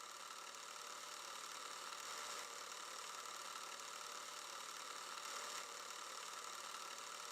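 A Super 8 film camera running, with the faint, steady whir of its film-transport mechanism.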